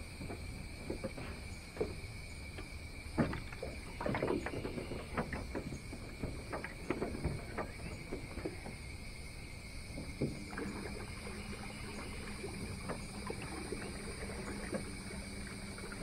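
Scattered knocks and clunks of handling in a johnboat, then about ten seconds in a trolling motor starts and runs with a steady low hum as the boat moves off.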